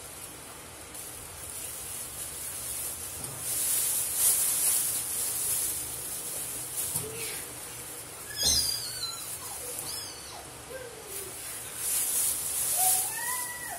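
Thin plastic produce bag crinkling and rustling in bursts as leafy greens are handled in it. There is a single knock about midway, and a few short, high squeaky calls that rise and fall.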